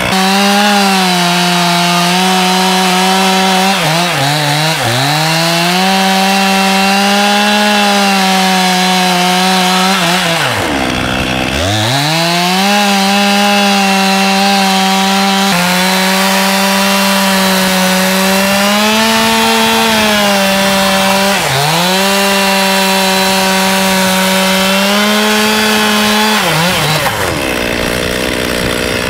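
Chainsaw running near full throttle as it cuts lengthwise along the top of a log. Its pitch sags briefly a few times, drops almost to idle about eleven seconds in, and then revs back up.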